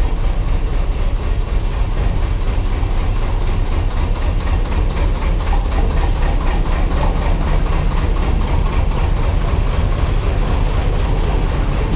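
Narrowboat engine running steadily with a low, even beat, inside a brick canal tunnel.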